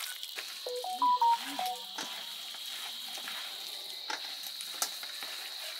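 Wet squelching and scraping of bare hands kneading spice-coated pork chunks in a steel bowl, mixing in the marinade. About a second in, a brief phrase of a few stepped pitched notes sounds over it, and a thin steady high tone runs underneath.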